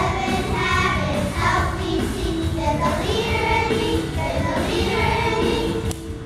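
A children's choir singing a song together in unison over instrumental accompaniment. The singing ends near the end.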